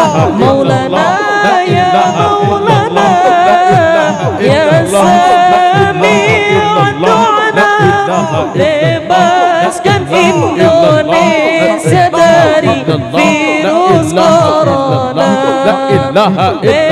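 Zikir saman chanting: ornamented, wavering voices singing unaccompanied in a group, over a quick steady beat of low thumps.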